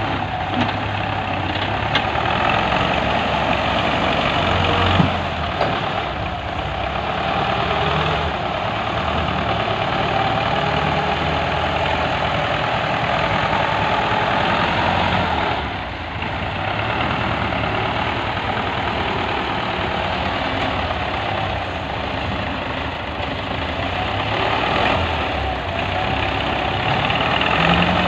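Tractor diesel engine running steadily while its front-end loader scoops and lifts a bucket of earth, dipping briefly about halfway through. A few faint clicks sound in the first five seconds.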